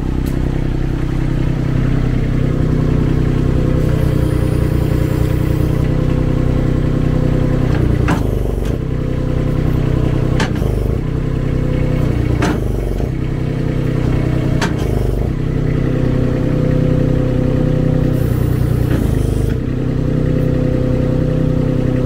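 Mini skid steer's diesel engine running steadily while its hydraulics open and close a log grapple, with four sharp clanks about two seconds apart midway as the grapple jaws hit their stops.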